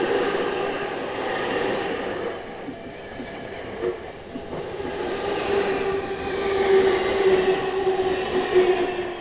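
Tokyu Meguro Line electric train passing close by over a level crossing: a continuous rumble of wheels on the rails with a motor whine whose pitch falls slowly in the second half. The level-crossing warning bell rings through it.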